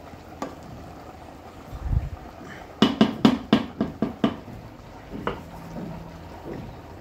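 Wooden spoon working through cooked white rice in an aluminium pot: a low thump, then a quick run of about seven sharp knocks of the spoon against the pot a little after halfway, and one more knock a second later.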